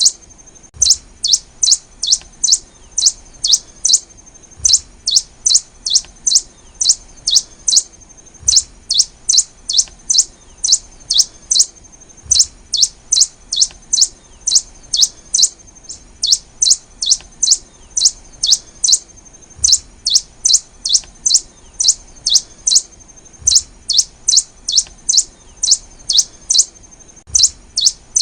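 Black-and-rufous warbling finch (Poospiza nigrorufa) calling: a fast series of sharp, high, downslurred chirps, about three a second. The chirps come in repeating phrases separated by short pauses roughly every four seconds.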